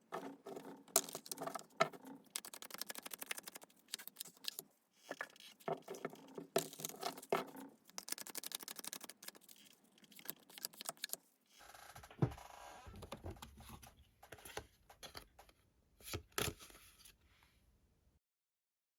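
Tarot cards being shuffled and handled: dense runs of quick clicks and flutters for about eleven seconds, then a softer rustle with a few low thumps and sharp taps, cutting off near the end.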